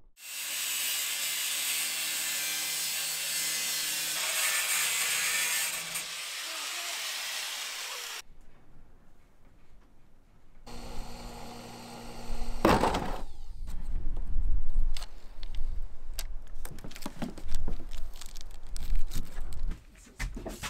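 Corded jigsaw cutting through a school bus's riveted sheet-metal roof, a loud, steady buzzing saw noise for about eight seconds. After a short lull, a run of sharp knocks and clatter takes up the second half.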